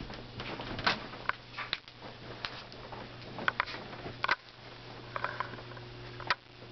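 Scattered soft rustles and taps as a Great Dane and a cat shift about on a quilted bed, over a steady low hum.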